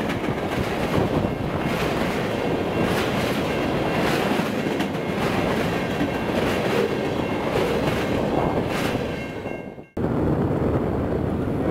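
Freight train of empty centerbeam flatcars rolling past close by: a steady rumble of wheels on rail with repeated clicks as the wheels cross rail joints. The sound dips and cuts out about ten seconds in, then a steadier rumble of a more distant train follows.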